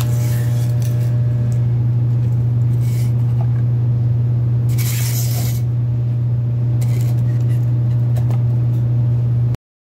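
Small geared electric motor running with a steady low hum, with short bursts of rustling handling noise as the wooden base box is moved about. The sound cuts off abruptly near the end.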